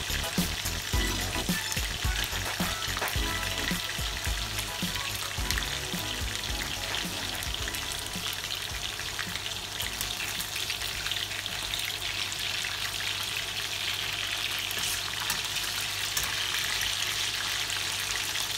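Battered chicken pieces sizzling steadily in a stainless steel frying pan, with a little liquid in the pan, while a spatula turns them.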